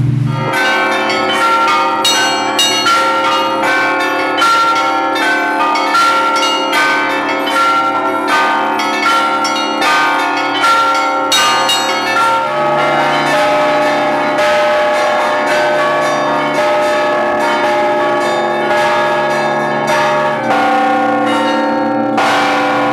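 Several church bells of different pitches rung together, struck in quick succession with their tones ringing on over one another. The mix of bells shifts a couple of times, with a low bell coming in and out beneath the higher ones.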